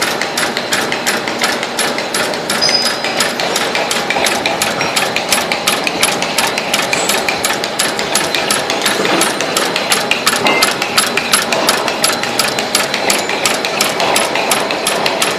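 Motor-winding insulation paper cutting and folding machine running, its cutter and folder stamping in a fast, even clatter of about four to five strokes a second over a steady mechanical whir.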